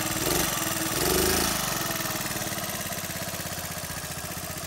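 1971 Honda PC50 moped's small single-cylinder four-stroke engine idling, freshly rebuilt with a rebored cylinder and new rings after some 30 years without running. It picks up briefly about a second in, then settles to a steady idle.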